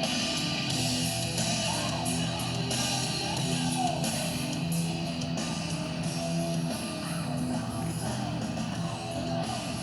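Rock music with strummed electric guitars playing through a motorcycle's fairing and saddlebag stereo speakers (Hertz mid-ranges and tweeters, Rockford Fosgate 6x9s on Rockford Fosgate amplifiers), picked up by a tablet's microphone.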